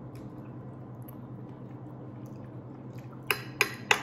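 Metal fork clinking three times in quick succession against a ceramic plate near the end, the loudest sounds here, after faint chewing and mouth sounds. A steady low hum runs underneath.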